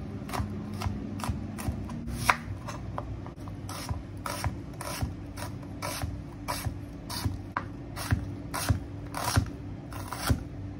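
Chef's knife slicing garlic and then a red onion on a cutting board: a run of sharp knocks of the blade meeting the board, about two a second, over a steady low hum.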